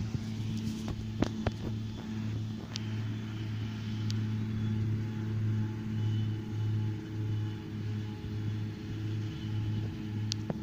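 Farm tractor engine running at a steady speed, its hum pulsing gently, with a few light clicks.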